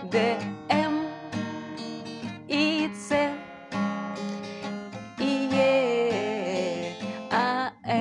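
Acoustic guitar strummed in a steady rhythm through the chorus chord changes, starting on D minor and moving through C and E. A woman sings a drawn-out melody along with it at several points.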